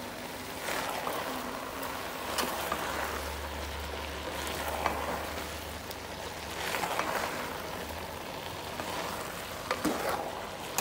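A spoon stirring grated carrots and sugar in a metal pot over the heat: soft scraping swishes every couple of seconds over a low, steady hiss of the cooking mixture.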